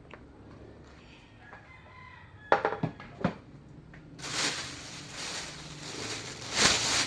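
A rooster crowing faintly in the background, then a few sharp knocks and a loud rustling of packaging being handled, loudest near the end.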